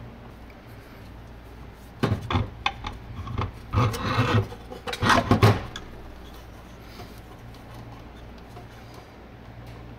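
Hard plastic scraping, rubbing and knocking as a battery is pushed into a plastic electrical enclosure by hand, lasting about three and a half seconds from two seconds in. A steady low hum runs underneath.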